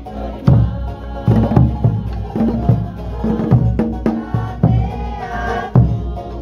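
Polynesian dance music: loud drum and wood-block strikes in a quick, uneven rhythm, with voices singing over them.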